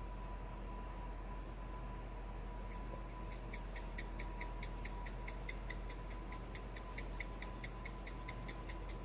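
Spice shaker shaken over a pan of sauce: short rattling ticks at about three a second, starting about three seconds in, over a steady low hiss.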